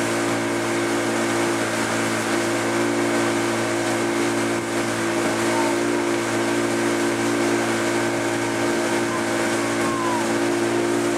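Motorboat engine running steadily at a constant speed, a low even drone over a steady rush of noise.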